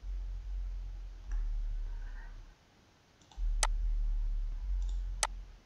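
Two sharp computer mouse clicks about a second and a half apart, over a low steady hum that drops out for about a second midway.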